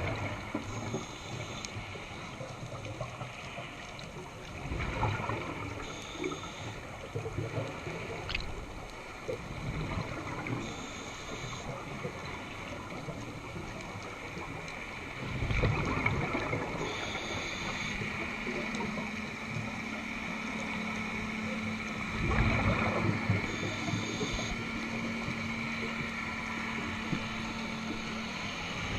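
Scuba diver breathing through a regulator underwater: a short hiss on each inhale and a rumbling burst of exhaled bubbles, roughly every five to six seconds. A steady low hum joins in the second half.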